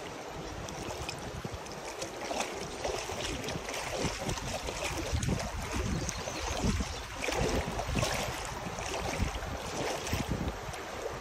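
Shallow creek water flowing and moving close to the microphone, a steady rushing hiss, with wind rumbling on the microphone in uneven gusts.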